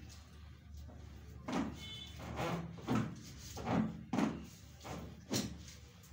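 A run of about eight dull knocks and thumps, irregular and roughly two a second, from a chiropractic treatment table and the patient's body during a back adjustment, with a brief faint squeak among them.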